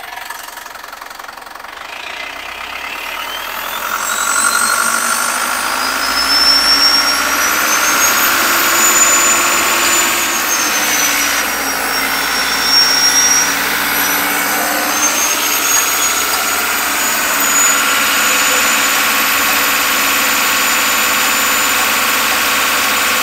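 Isuzu NHR55 diesel engine held at raised revs on a test run, with the freshly rebuilt turbocharger whistling through its open compressor inlet. The whine rises in pitch over the first several seconds, dips about halfway, then climbs again and holds steady.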